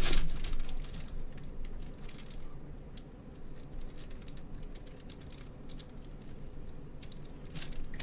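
Clear plastic bag crinkling with light, irregular ticks as gloved hands handle the helmet inside it. It is loudest right at the start, then softer scattered crackles follow.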